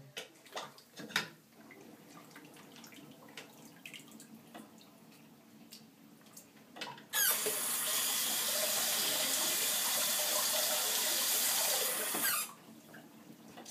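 A bathroom sink tap is turned on and runs hard into the basin for about five seconds, then is shut off abruptly. Before it come a few light clicks and taps.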